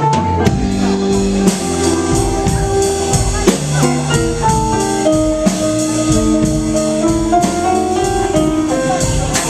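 A live blues band playing without vocals: electric guitar, electric bass, drum kit and keyboard. Long held notes sit over a steady drum beat.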